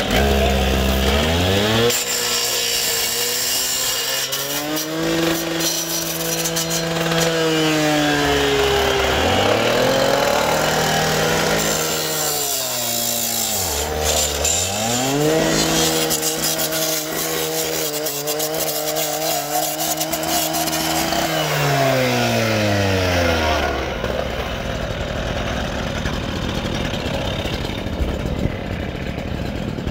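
Gas-powered two-stroke cut-off saw revving up and cutting through a steel chain-link fence, the engine pitch sagging under load and climbing again twice. Near the end the revs fall away and the engine sound drops off.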